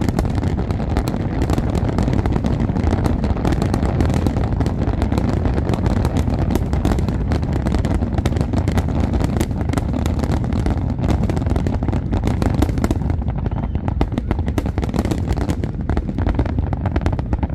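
Fireworks display in a dense, continuous barrage: rapid sharp cracks and bangs over a constant heavy rumble.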